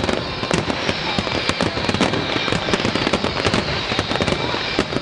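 Aerial firework shells bursting one after another in a rapid barrage: a dense, near-continuous run of bangs and crackles.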